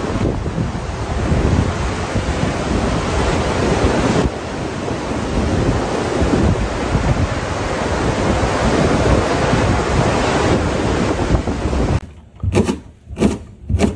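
Heavy surf breaking on a rocky shore, a continuous dense rush with wind buffeting the microphone. About twelve seconds in it cuts off abruptly, followed by several quick knife chops on a cutting board.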